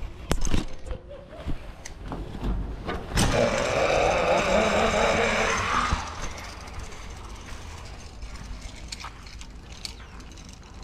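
Zip-line pulley trolley rolling along a steel cable: a loud rushing whir starting about three seconds in and lasting about three seconds. Scattered sharp metal clicks of clips and hardware come before and after it.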